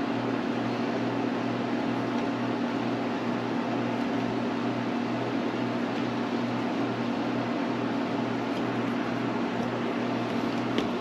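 Steady, even mechanical hum of a running room appliance such as a fan or air conditioner, with a couple of faint clicks from handling near the end.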